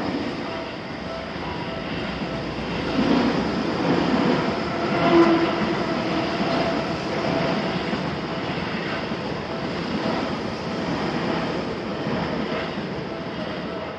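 Seibu Shinjuku Line electric train running over a level crossing, with steady wheel-on-rail noise that swells about three to five seconds in. Through it, the crossing's warning bell dings steadily.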